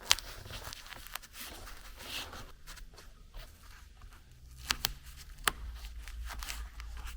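Handling noise from cutting and fitting anti-squeak material onto a plastic car door trim panel: soft rustling with a few sharp clicks, the sharpest just at the start and around five seconds in.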